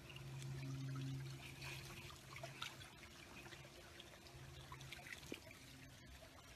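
Faint trickling water with scattered small splashes over a steady low machine hum.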